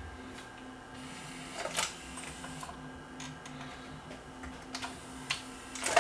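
Open CD player's disc mechanism running: a low hum that pulses steadily, with light ticking and clicking from the transport, and a louder click about two seconds in and another near the end.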